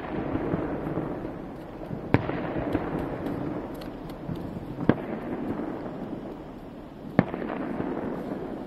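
Aerial firework shells bursting: three sharp bangs about two and a half seconds apart, each followed by a long rolling rumble of echo, with faint crackling in between.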